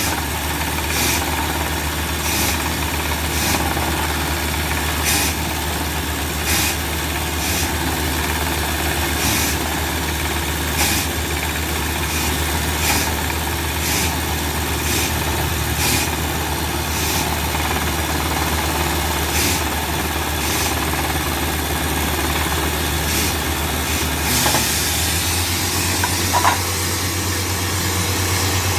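Engine of a bore drilling rig running steadily, with sharp knocks every second or two over the hum. Near the end the engine note shifts higher.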